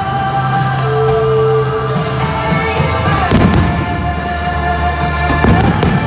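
Fireworks going off over loud music: a few sharp bangs about halfway through and a few more near the end.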